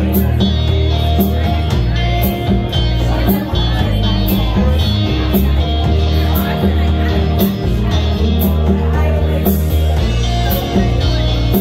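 Live rock band playing amplified electric guitars over a drum kit, with a steady beat of cymbal hits and a heavy, sustained low end.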